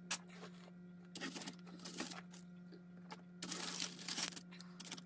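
Faint rustling and crinkling of brown kraft paper in short spells as a hand moves a painted figure across it, over a steady low hum.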